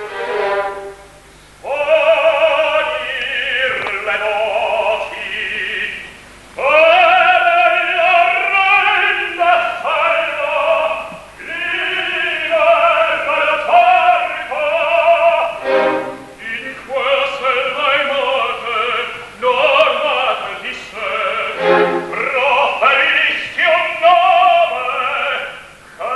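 Operatic tenor singing an Italian recitative in separate phrases, with short pauses between them, over an orchestra.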